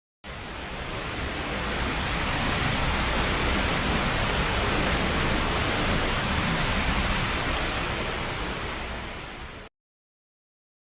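Tornado wind sound effect: a steady rushing roar that swells in over about two seconds, holds, eases a little and then cuts off suddenly.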